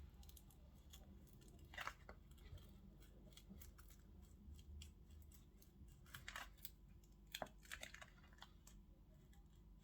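Faint scraping and a few short clicks of a tool working under the glued screen of an OPPO A74 5G, cutting the adhesive to separate the screen from the frame.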